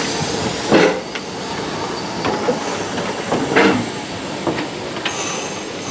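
Steady hiss of steam from a Vale of Rheidol narrow-gauge steam tank locomotive close by, with two short louder bursts, one about a second in and one a little after three and a half seconds.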